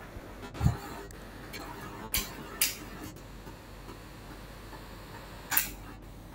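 A few sharp computer-mouse clicks: two about half a second apart around two seconds in, and one more near the end. A dull thump comes under a second in.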